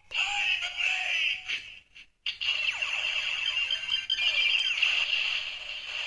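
Electronic sound effects and music from a toy Kamen Rider transformation belt playing a Ride Watch's audio through its small, tinny speaker. The sound breaks off for a moment about two seconds in, then carries on.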